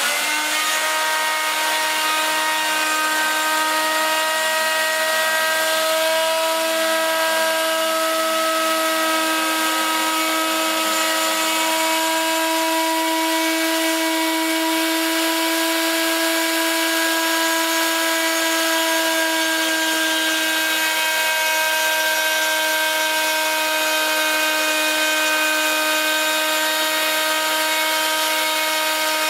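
Homemade CNC router's spindle, a hand router motor, running with a steady high-pitched whine while its bit mills grooves into a wooden board.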